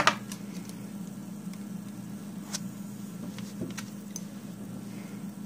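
A sharp knock right at the start, then a few light clicks and taps of nail-stamping tools on a metal stamping plate while orange polish is laid on and spread across the engraving. A steady low hum sits underneath.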